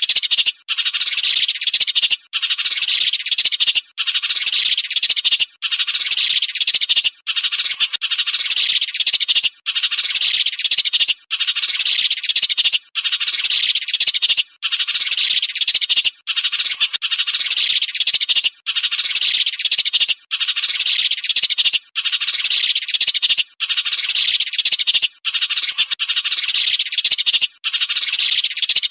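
Recorded sparrow calls played as a lure for glue-trapping birds: loud, dense chattering in blocks of about a second and a half, each broken by a brief gap, repeating over and over.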